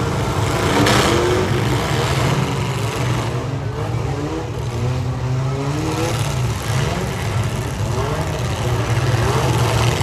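Several demolition derby vehicles' engines running loud and revving, over and over, with pitch rising on each rev. A short burst of noise about a second in.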